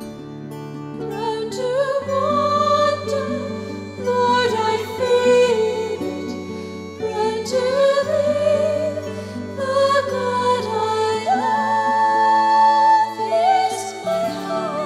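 Slow music: a wavering melody over held low notes that change every couple of seconds.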